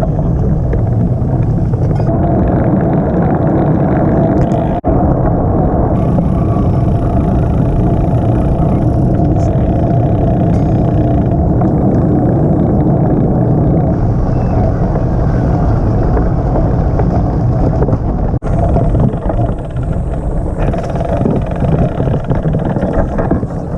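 Steady running noise of a vehicle on the move, engine and rushing air mixed together, with two brief dropouts, one about five seconds in and one near eighteen seconds.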